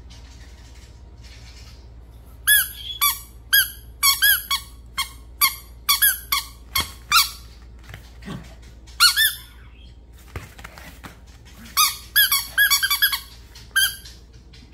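Rubber squeaky dog toy squeezed by hand in quick runs of short, high squeaks. The first run starts about two and a half seconds in, there are a couple more squeaks after a pause, and a second run comes near the end.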